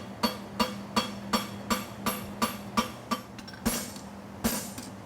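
Hand hammer striking a hot steel horseshoe branch on an anvil, with ringing blows at an even pace of about three a second as the branch is forged out. After about three and a half seconds the blows slow to one every second or so and ring brighter. A steady low hum runs underneath.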